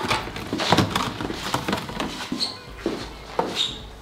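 Clear plastic blister packaging being handled, crackling and clicking irregularly as it is worked to free a doll's accessory hand.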